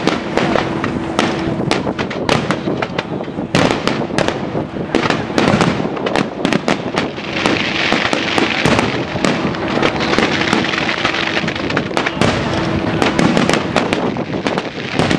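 Fireworks and firecrackers going off in a dense, continuous barrage of rapid crackling bangs. About halfway through, a hissing crackle swells and then fades.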